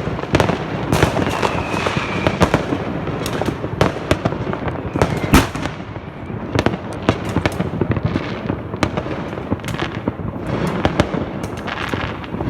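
New Year's Eve fireworks and firecrackers going off: a dense, irregular run of bangs and pops over a continuous crackling haze, with one especially sharp bang about five seconds in.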